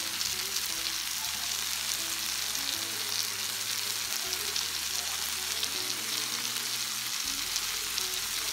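Vegetables frying in oil in a skillet: bell peppers, carrots, tomato and celery being sautéed, giving a steady sizzle with small crackles.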